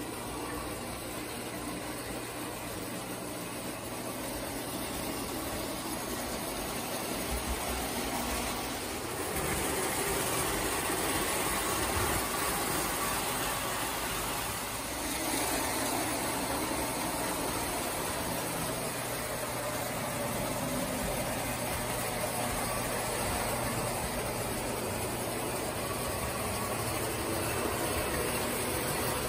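1934 Lionel tinplate work train running on its track: the electric motor whirs and the wheels rattle over the rails in a steady noise, with a low steady hum underneath. It grows louder about nine seconds in.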